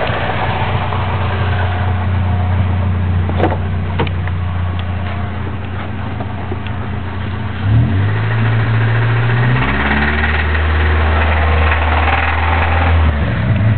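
Chevrolet Cavalier Z24 engine running with a knock, the fault the owner is showing off. It is revved briefly about eight seconds in and settles back to idle, with another short rev near the end.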